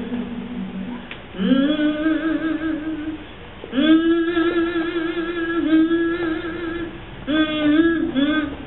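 A singer holding long, wavering notes with vibrato in three slow phrases, each note sliding up into pitch, with no accompaniment.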